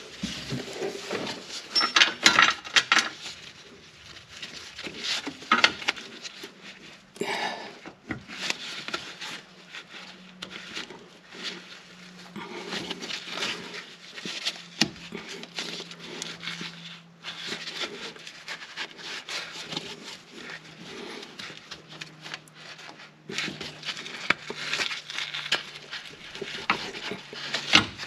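Gloved hands rubbing and scraping a rubber sway bar bushing and its metal bracket into place on a car's rear sway bar, with scattered clicks and clinks of metal.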